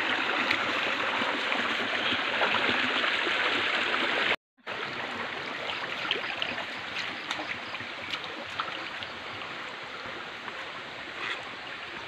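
Shallow stream rushing over rocks, a steady wash of water. It cuts out for a moment about four seconds in, then goes on a little quieter, with a few faint ticks.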